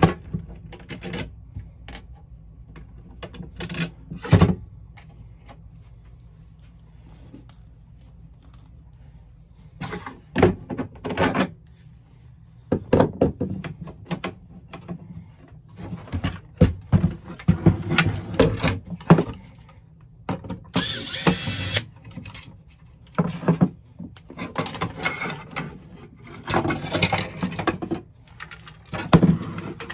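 Irregular clicks, knocks and rattles from a lever-arm paper cutter being handled on a wooden workbench: the metal blade arm is moved and the cutter is lifted and turned over. A second-long rushing scrape comes about two-thirds of the way through.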